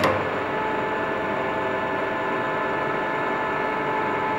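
RABOMA radial drilling machine running, its spindle drive giving a steady whine of several tones over a running hum, after a single click at the start.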